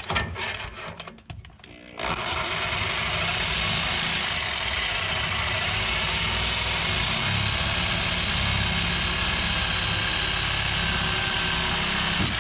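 A few scattered knocks, then about two seconds in a reciprocating saw starts and runs steadily, its blade cutting through a steel exhaust pipe.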